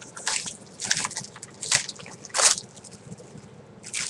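A Blu-ray case and its packaging being handled and opened: about five short, irregular rustling bursts of plastic and cardboard.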